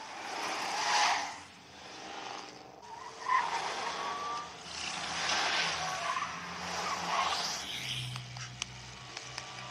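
A vintage open roadster's engine running hard as the car speeds and swerves, its tyres skidding and squealing on a dirt road in several loud surges. Near the end the engine settles to a steady low hum.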